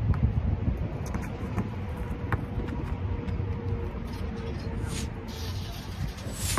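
Wind rumbling on the microphone, with a basketball dribbled on the asphalt court heard as scattered light knocks. A rushing hiss comes in for about the last second and a half.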